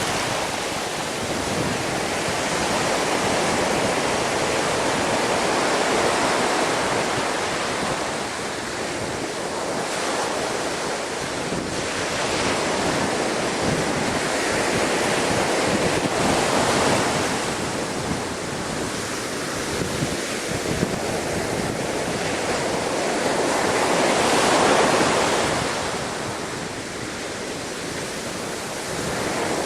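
Storm-driven waves surging and breaking against a sea wall, the rush rising and falling in several swells, loudest near the end, with wind on the microphone.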